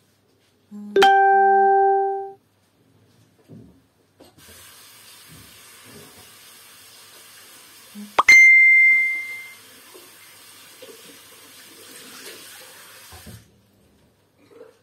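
Electronic beeps and a hiss from a facial treatment machine: a ringing chime about a second in, then a steady hiss for about nine seconds, with a short high beep partway through.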